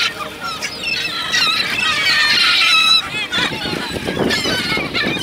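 A flock of gulls calling: many overlapping, high squealing calls, one over another.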